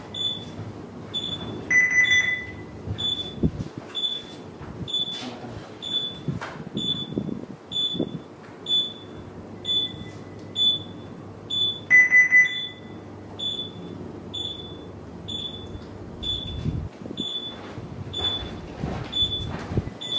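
Ship bridge console alarm beeping: short high-pitched beeps a little more than once a second, with a longer, lower tone sounding twice, about ten seconds apart.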